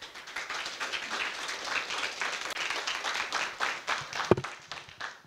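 A small audience applauding, building at once, then thinning and fading out near the end. One louder single knock about four seconds in.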